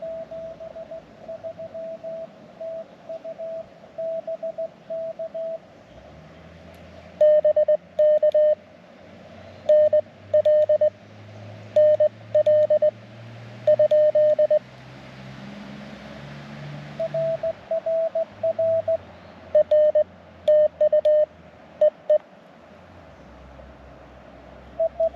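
Morse code (CW) from a ham radio transceiver: a single beeping tone keyed on and off in dots and dashes. Quieter, even keying at first, then louder, sharper groups from about seven seconds in.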